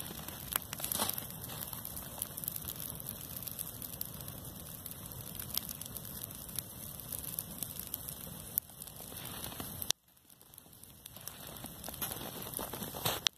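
A heap of dry hay burning with dense, continuous crackling and popping. The sound drops out abruptly about ten seconds in, then builds back up.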